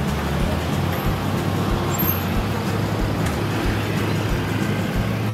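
Steady outdoor street ambience: a low rumble of road traffic under a general wash of noise.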